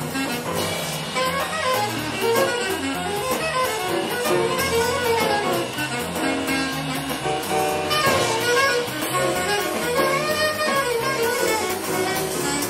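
Small bebop-style jazz group of alto saxophone, trumpet and piano playing; a horn solos in quick runs of notes over the accompaniment.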